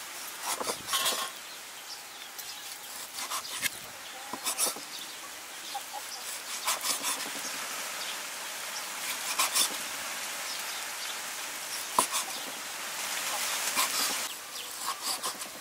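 Cleaver slicing raw beef on a wooden chopping block: irregular soft cuts and knocks of the blade against the board, one sharper knock about three quarters of the way through. A steady insect buzz runs behind.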